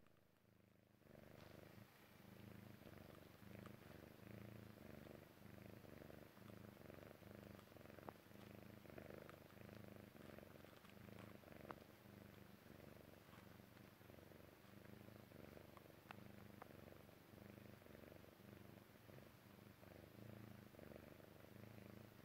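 Persian Chinchilla cat purring faintly while dozing: a low, rhythmic purr that swells and eases in pulses, starting about a second in, with a few faint clicks.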